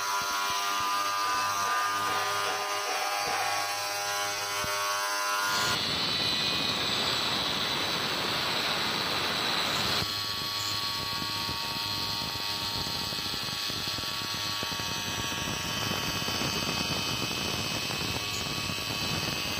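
The twin electric motors of a water-cooled ceramic tile cutting machine hum steadily. About six seconds in, a loud, dense grinding hiss starts as the spinning blades cut through the wet ceramic tile, and it carries on steadily.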